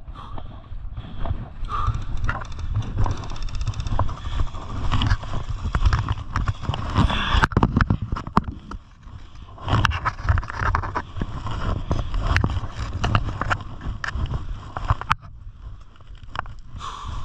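Footsteps on a dirt path and gear rattling as a player moves: irregular clicks and knocks over a low rumble of handling and wind on a body-worn camera microphone.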